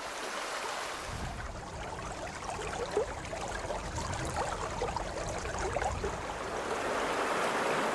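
Rushing mountain stream: a steady wash of running water with a few small gurgles, growing a little louder toward the end.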